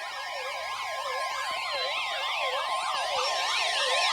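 NOAA Weather Radio 1050 Hz warning alarm tone held steady, signalling a warning broadcast, under several overlapping electronic siren tones whose pitch zigzags rapidly up and down, with a slowly falling tone above them.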